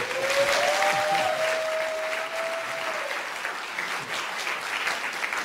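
Audience in a lecture hall applauding and cheering, with a long drawn-out call from the crowd held for about the first three seconds.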